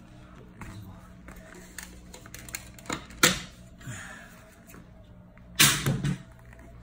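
Clicks and knocks of a plastic wheel cover being pried off a golf cart's steel wheel, with a sharp crack a little over three seconds in and a longer, louder clatter near six seconds.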